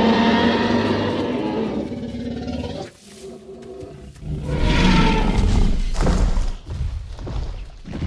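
Sound-designed dinosaur roars and growls: a long roar at the start, a second roar about four and a half seconds in, then lower rumbling growls.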